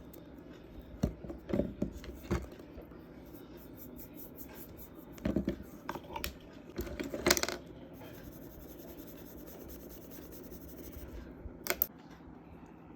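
Scattered light clicks and taps at irregular intervals, like small hard objects being handled or set down, with a steady faint hiss between them.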